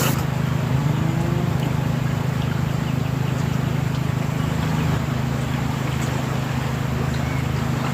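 A small engine running steadily with a low hum, its pitch briefly rising about a second in.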